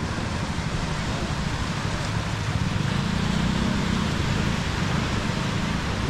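Small waves of gentle surf washing up the sandy shore, a steady hiss over a low rumble.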